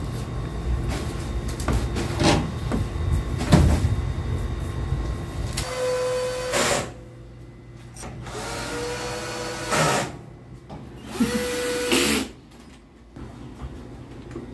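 Cordless drill-driver driving screws into a sofa frame, in three short runs of about a second each in the second half. Before that, knocks and rumbling as the wooden frame is handled.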